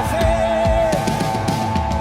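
Live worship band music with a steady kick-drum beat under sustained guitar or keyboard chords and a held, wavering melodic note.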